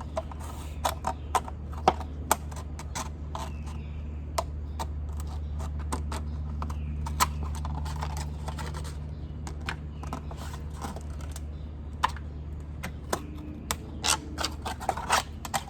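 Sharp scissors cutting through a thin plastic water bottle: irregular snips and clicks of the blades and the plastic, thicker near the start and the end, over a steady low hum.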